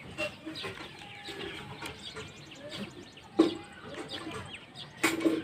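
Small birds chirping and chickens clucking throughout, with two louder short sounds about three and five seconds in.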